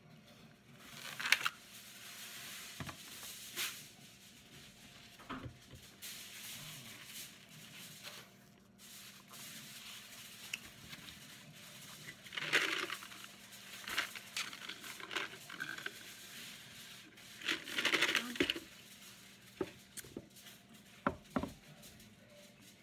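Eating and table-handling sounds: a fork against a foam takeout clamshell, the foam lid being shut, and scattered clicks, scrapes and rustles. The loudest bursts come about a second in and again around 12 to 18 seconds.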